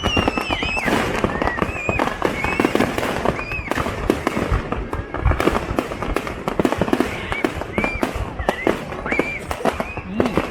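Fireworks display going off in a dense barrage of irregular bangs and crackling, with many short high squeals rising and falling over it.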